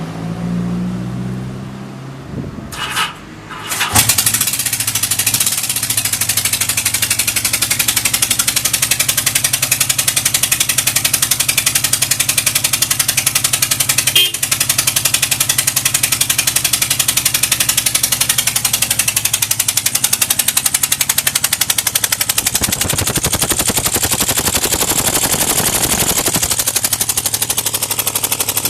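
Yamaha XS1100's air-cooled inline-four engine is started on the electric starter, catching about four seconds in. It then runs with a rapid, even beat of exhaust pulses at an idle the seller calls unstable. Near the end the revs rise and fall.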